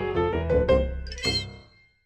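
Short musical logo jingle of a TV news channel: a quick run of synth notes over a low bass, ending a little over a second in with a bright chime that rings out and fades.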